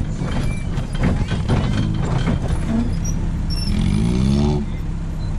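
Off-road buggy engine running under way, revving up with a rising pitch about four seconds in, with scattered knocks and rattles from the buggy bouncing over the rough dirt track.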